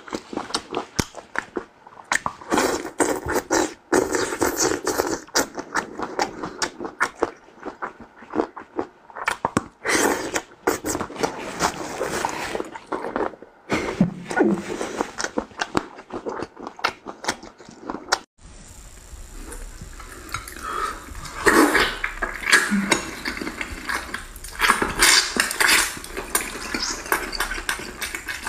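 Close-up eating sounds: wet chewing, sucking and lip-smacking on chicken feet in a spicy sauce, with many sharp mouth clicks. About 18 seconds in it cuts to another recording with a low hum beneath, and the chewing and sucking go on over a braised pork trotter.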